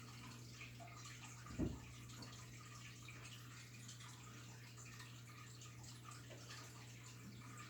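Faint trickling and dripping of water in a goldfish tank over a steady low hum. A single low thump comes about one and a half seconds in.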